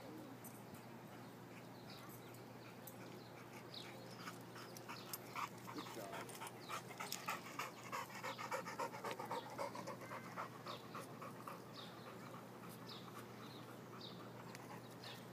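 Black Labrador panting in quick, regular breaths after running to fetch a ball, loudest for several seconds in the middle.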